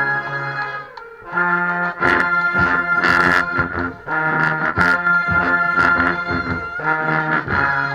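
Marching band playing a stand tune: brass section holding loud chords, with a short break about a second in and drum hits joining about two seconds in.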